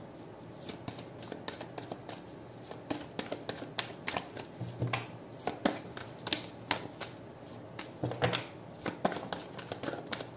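A deck of cards being shuffled by hand: an irregular patter of light clicks and slaps as the cards slide and strike each other, a few sharper than the rest, with a couple of soft low thumps.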